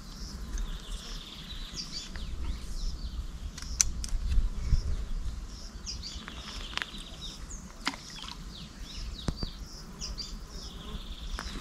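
Birds chirping and calling in riverside scrub, with a buzzy trill that comes back several times and a few sharp clicks, over a steady low rumble.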